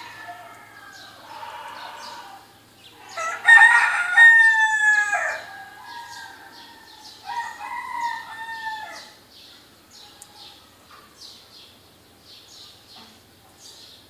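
A rooster crowing twice, loud the first time about three and a half seconds in and quieter the second time about seven seconds in, with small birds chirping around it.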